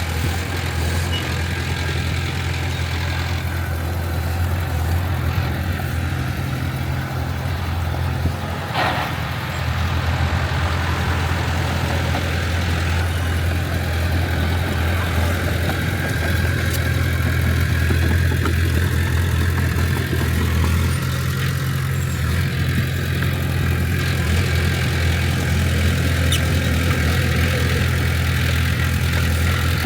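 Heavy diesel engine of earthmoving machinery running steadily at a low, even hum, a little louder in the second half.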